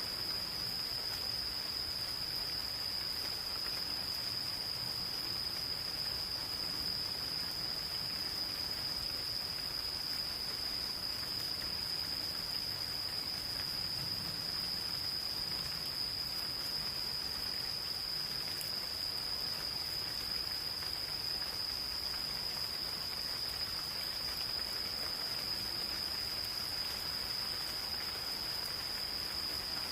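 Insects calling in one unbroken high-pitched trill, over the soft patter of light rain.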